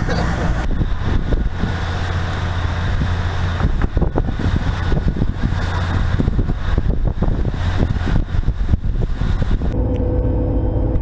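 A fishing boat's engine running with a steady low drone, under wind and sea noise and scattered knocks and clatter. Near the end the hiss falls away, leaving a steady hum and a thin steady tone.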